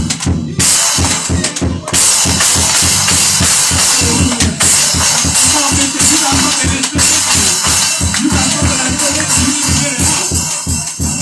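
Loud praise music driven by a drum kit, with a fast, evenly repeating bass drum beat and cymbals.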